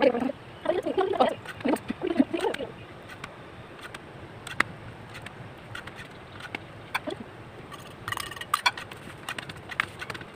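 A person's voice talking in the background for the first couple of seconds, then a low steady hiss with scattered faint clicks and a few short bird chirps about eight seconds in.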